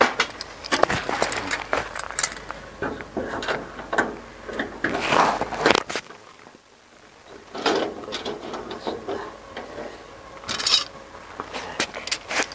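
Hand riveter being worked on a metal wheelbarrow tub: a run of metallic clicks and scrapes from the tool's handles and jaws, with one sharp snap about six seconds in, like a rivet stem breaking off.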